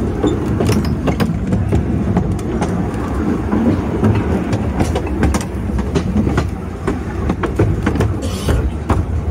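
Riding a moving narrow-gauge train: a steady low rumble of the carriage with irregular clicks and clacks as the wheels run over rail joints and points.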